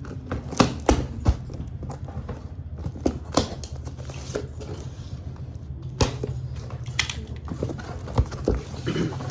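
Handling of a package during unboxing: scattered knocks and clicks of items and packaging being moved, over a steady low hum.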